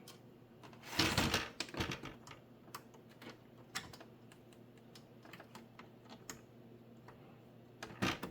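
Hand-handling noises of monitor parts: scattered light clicks and taps of plastic and cable, with a louder scraping rustle about a second in and another near the end.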